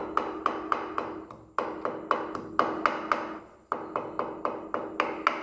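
Wooden pestle pounding cardamom pods and cloves in a wooden mortar to grind them into powder: quick, regular knocks, about three a second, with two brief pauses, about one and a half and three and a half seconds in.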